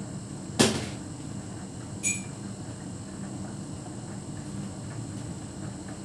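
Hotpoint heat pump tumble dryer running, its drum turning a load of bedding and towels with a steady rumble and hum. A sharp knock sounds about half a second in, and a smaller knock with a brief metallic ring about two seconds in.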